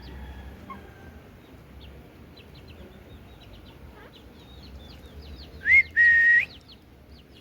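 Small birds chirping rapidly and steadily, with two loud whistled calls near the end, a short rising note and then a held one, typical of an Indian ringneck parrot.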